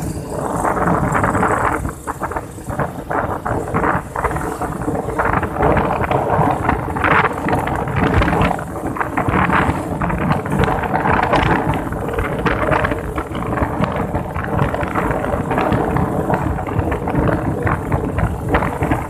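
Strong wind buffeting the microphone in uneven gusts, over the steady running noise of a moving vehicle.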